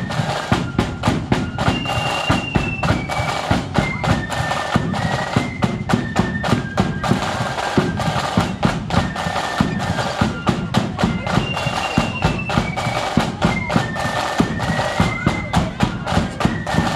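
Marching flute band playing a tune: a high flute melody over rapid snare drumming and a bass drum beat.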